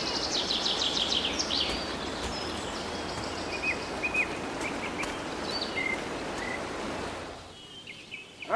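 Small birds chirping, with a rapid trill near the start, over a steady outdoor hiss of forest ambience; the hiss falls away about seven seconds in.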